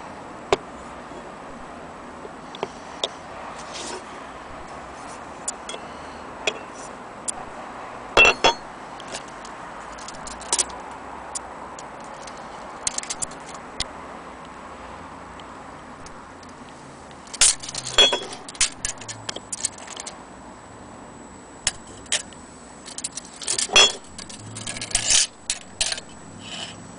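Small brass microscope being handled: scattered metallic clicks, clinks and knocks as its parts and a tape measure are moved against it, in clusters with a steady hiss between them.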